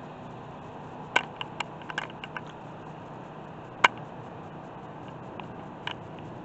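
A handful of short, sharp clicks and taps over a steady low hiss: a quick cluster about a second in, the loudest single click near four seconds, and one more near six seconds.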